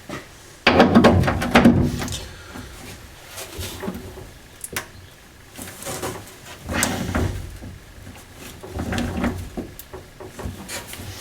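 Hand tools working on rusty bumper nuts and bolts: three bursts of metal scraping and rattling, each about a second long, with quieter clatter between.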